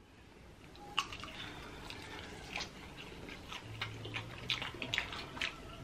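Close-up wet chewing and lip-smacking of sauce-coated chicken wings, a string of small sticky clicks and crackles, with a short low hum near the middle.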